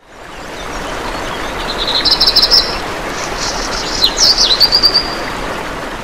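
Small birds chirping, with a run of quick repeated notes and then calls with sharp downward sweeps and a short trill, over a steady rushing noise that fades in over the first second.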